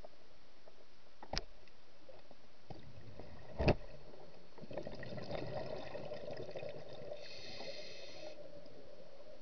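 Underwater sound through a camera housing: two sharp clicks, the second louder, a couple of seconds apart, then a few seconds of rough, muffled water noise with a brief high buzz near the end.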